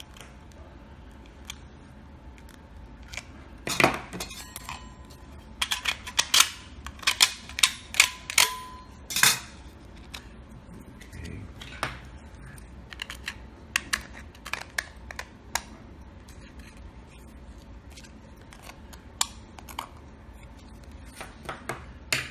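Sharp clicks and snaps of 3D-printed plastic support material being broken off a part with needle-nose pliers, thickest in the first half, then sparser small knocks and clicks of tools and parts on a tabletop.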